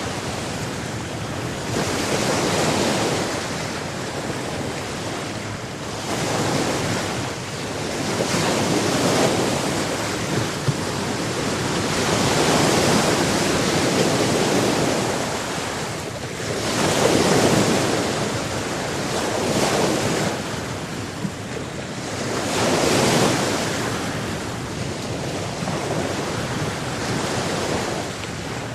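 Sea surf: waves breaking and washing up the shore, the rush swelling and fading every few seconds, with some wind on the microphone.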